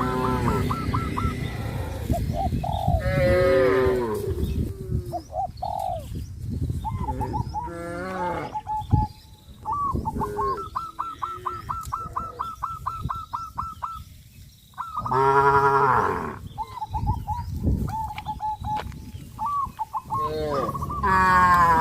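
Cattle mooing repeatedly, several long low calls from different cows spread through the herd. Between the moos a bird calls in rapid trains of short repeated notes.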